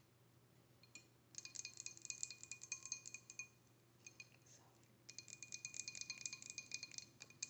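Two bursts of rapid rattling and clinking, each about two seconds long, with a bright ringing tone through them.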